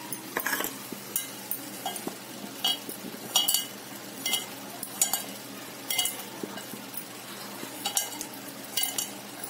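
A bare hand mixing chopped ivy gourd with chickpea flour (besan) and spices in a steel pot: irregular short scraping and rustling bursts against the metal, one or two a second.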